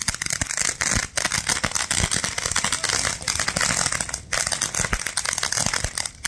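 Fireworks crackling: a dense, rapid run of small sharp pops, broken twice by a brief gap, about one second and about four seconds in.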